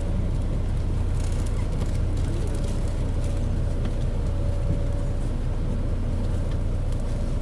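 Low, steady drone of a Mitsubishi Fuso KC-MP617K city bus's diesel engine running, heard from inside the bus, with a faint steady whine above it. This bus is an unusual-sounding unit whose engine noise is far from stock, which the uploader suspects comes from some fault or trouble.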